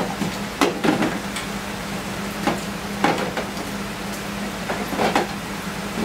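SN95 Mustang wiring harness being handled and pulled through the door opening: loose wires and plastic connectors rustling and knocking in irregular clicks. Underneath is a steady hiss of rain and a low steady hum.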